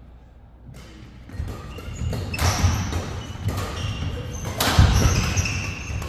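Doubles badminton rally starting about a second and a half in: sharp racket strikes on the shuttlecock, thudding footfalls and short squeaks of court shoes on the floor.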